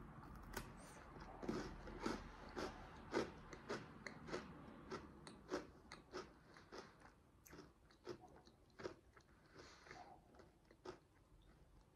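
Someone chewing a dry Kinder shortbread biscuit: soft repeated crunches, about two a second, growing fainter over the second half.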